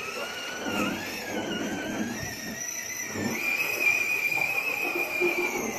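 Battery-powered ride-on toy car driving: its electric motor and gearbox whine, rising in pitch then holding steady about halfway through, over the rumble of its plastic wheels rolling on concrete.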